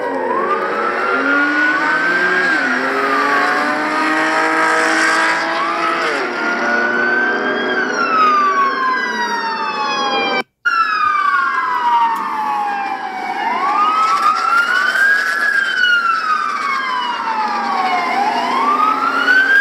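Several police car sirens wailing at once, their pitches rising and falling slowly and overlapping one another. The sound cuts out for a moment about ten seconds in.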